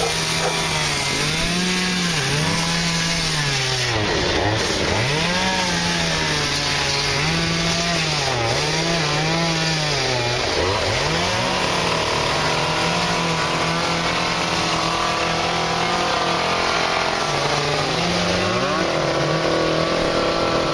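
Chainsaw running and cutting wood, its engine pitch repeatedly dropping and climbing back as the chain bites in and frees.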